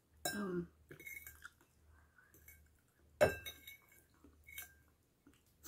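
Metal fork clinking and scraping against a bowl while eating. There are a few sharp clinks, the loudest about three seconds in.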